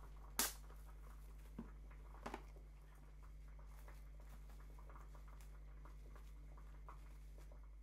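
Quiet kitchen handling: a sharp click about half a second in, a softer tap and a quick double click a couple of seconds later, then faint small ticks as plastic wrap is pressed over a glass dish. A low steady hum sits under it all.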